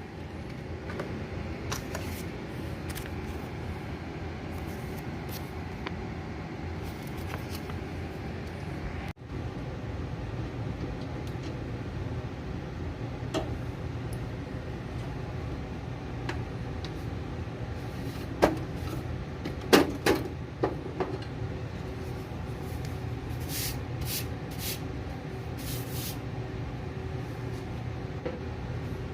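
Steady low hum with scattered clicks and, about two-thirds of the way through, a few louder knocks and clacks: handling of a desktop PC's case and parts.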